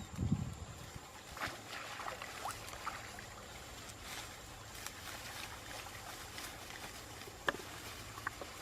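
Water sloshing with scattered small splashes and light clicks, and a low rumbling bump at the start.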